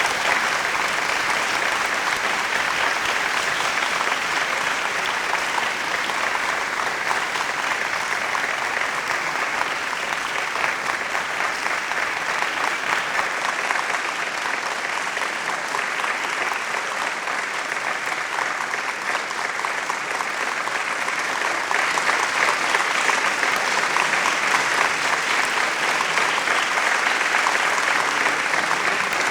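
Large audience applauding, a dense, steady mass of clapping that swells slightly about three-quarters of the way through.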